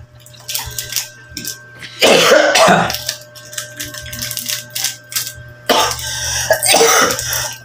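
A man coughing hard in two fits while eating, one about two seconds in and a longer one near the end, as if food has caught in his throat. Small clicks of chewing come between the fits.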